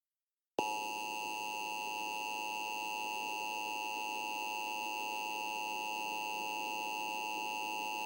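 Emergency Alert System attention signal: a steady electronic two-tone sound that starts about half a second in and holds unbroken, alerting listeners to an emergency message.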